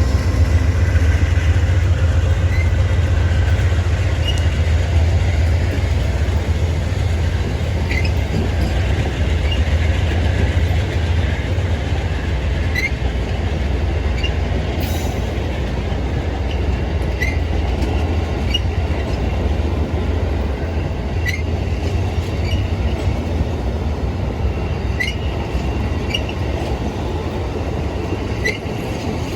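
Dubbed-in sound effect of a full-size train running: a steady low rumble, with short high squeaks or clicks about every four seconds.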